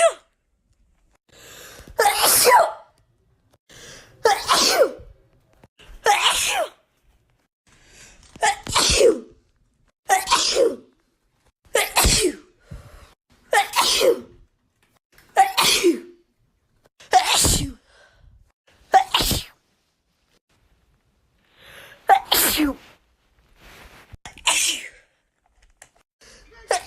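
A woman's allergy sneezing fit: about a dozen loud sneezes in a row, one every two seconds or so, each with a short breath in before it, and a brief pause after the first ten or so.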